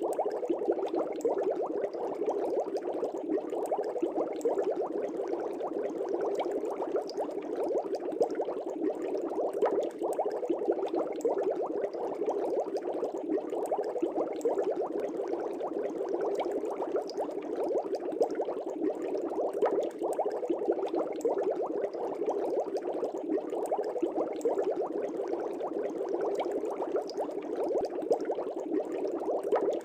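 Aquarium air bubbles rising and bursting in a fish tank: a steady, dense burble of many small bubbles with fine popping.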